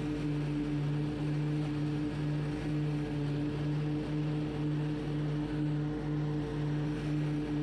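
Hustler Surfer Pro stand-on mower's engine running steadily while mowing grass: a steady drone with a slow, regular pulse about twice a second.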